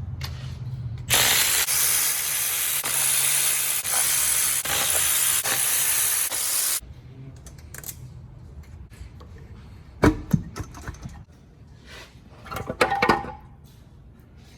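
A power ratchet runs for about six seconds, a loud hissing buzz with fine ticking, undoing fasteners on an engine's front end. It stops abruptly and is followed by a couple of sharp metal knocks and a short clatter of metal parts.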